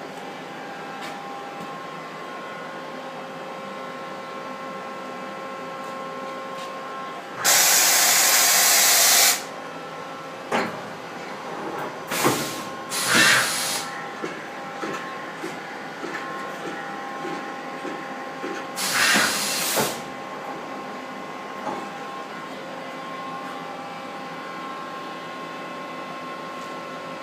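Hardinge VMC1000II vertical machining center running with a steady hum and several held whining tones. Loud bursts of air hiss cut in over it: one of about two seconds a quarter of the way in, then shorter ones around halfway and about two-thirds through.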